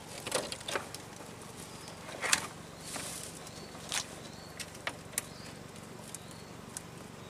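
Scattered clicks and knocks of a collapsible wire-ring crab trap and its rope being handled in a small boat, the loudest knock a little over two seconds in.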